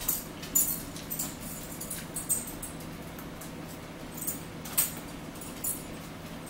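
Close-up eating sounds: chewing and mouth smacks, heard as a few scattered sharp clicks with a quieter stretch in the middle, over a low steady hum.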